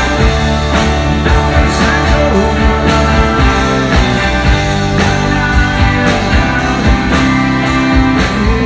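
Live rock band playing a song through the PA: electric guitars, bass guitar and a drum kit keeping a steady beat.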